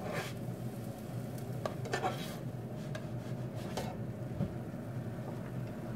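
A plastic spatula scraping and tapping a few times against a frying pan while a pancake cooks, with a faint sizzle over a steady low hum.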